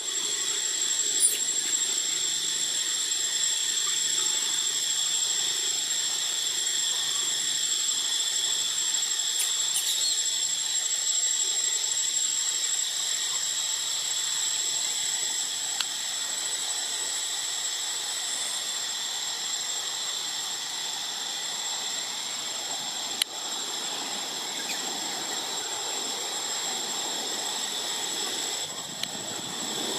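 A steady, high-pitched whining drone made of several even tones, with a single sharp click about 23 seconds in.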